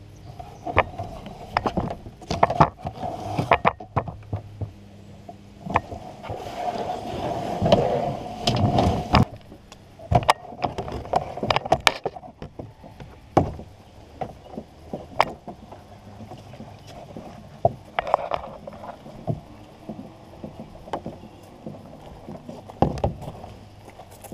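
A plastic kayak being handled and lifted out of the water, heard through a camera mounted on the kayak: irregular knocks and thumps with stretches of rubbing and scraping against the hull.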